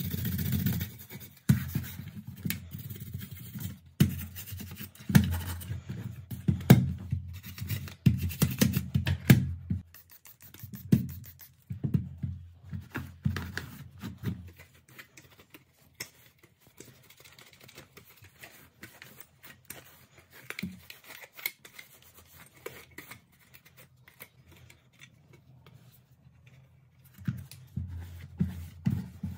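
A small brush scrubbing the sheet-metal casing of a floppy drive, then a cloth rubbing over the drive, with scratchy strokes and light handling knocks. The rubbing grows quieter about halfway through and picks up again near the end.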